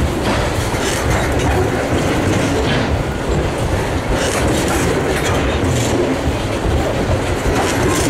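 Freight train hopper wagons rolling past at close range: a steady loud rumble of steel wheels on rail, with repeated clacks as the wheels cross rail joints.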